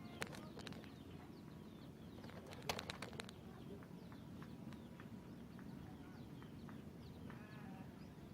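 Faint outdoor ambience with scattered short, falling bird chirps. A quick run of sharp clicks comes about three seconds in.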